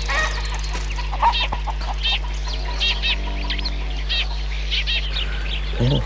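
Sparrows chirping, a quick run of short, sharp chirps repeated again and again, over a steady low hum.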